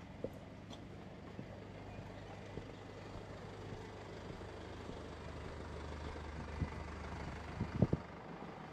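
A motor vehicle passing on the street: a low engine and road rumble swells over a few seconds and drops away near the end. Just before it fades there are a few sharp knocks, the loudest sounds in the clip.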